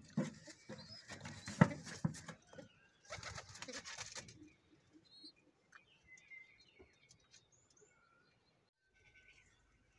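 Young pigeons handled in a wooden nest box: rustling, scuffling and clicks for the first two and a half seconds, and another burst of rustling around three to four seconds in. This is followed by faint short squeaky calls from the young birds.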